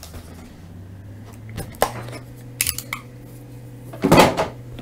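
A razor box cutter and hands working on a sealed cardboard hockey card box: small clicks and taps, then a loud crinkly rustle about four seconds in as the wrapping is cut and pulled off.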